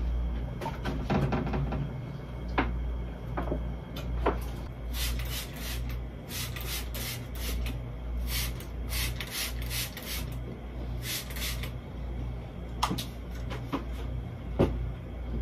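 Trigger spray bottle spritzing a tabletop in a run of short hissing squirts, followed by wiping, with a few sharp knocks now and then. A low hum pulses underneath throughout.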